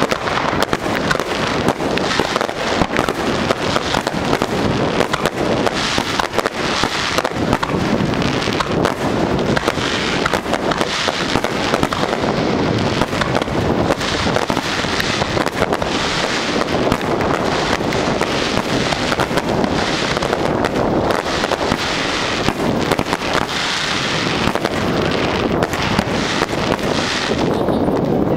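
Aerial fireworks display: shells bursting overhead one after another in a dense barrage, a continuous run of rapid bangs and crackling with no pause.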